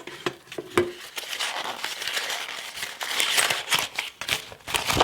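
Crinkling, rustling handling noise: a dense run of small crackles and clicks that grows busier in the second half.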